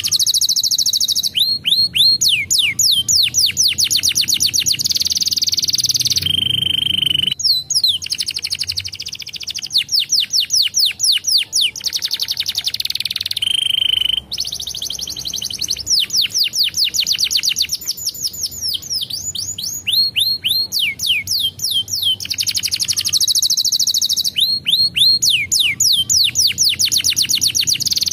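Domestic canary singing a long, continuous song: fast trilled rolls, runs of rapidly repeated falling notes and short held whistles, one phrase after another with barely a break.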